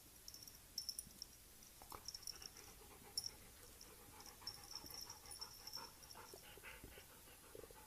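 Faint dog sounds: soft panting-like noises with a few scattered clicks, and a thin high squeak lasting about a second near the middle.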